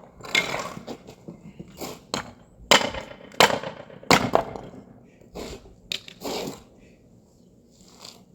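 Wooden pallet boards being broken apart: a run of sharp cracks and knocks of splintering wood at irregular intervals, busiest in the first half.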